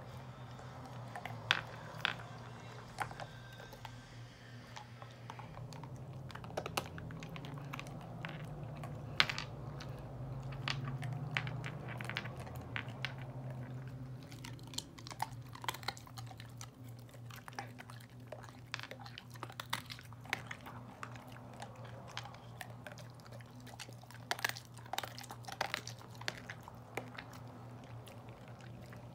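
A pet wolf's teeth crunching on a hard sugar-shelled Jordan almond: irregular sharp cracks and clicks, some in quick clusters, more of them in the second half. A steady low hum runs underneath.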